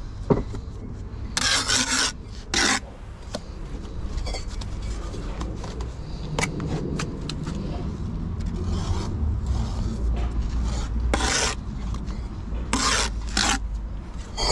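Steel brick trowel scraping and cutting mortar on a mortar board in several short scraping strokes while bricks are laid, over a low steady rumble.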